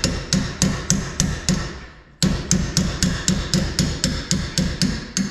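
A hand hammer striking rapidly at a travel trailer's leaf-spring suspension, knocking the old plastic bushings out, about four blows a second. The hammering pauses briefly about two seconds in, then resumes.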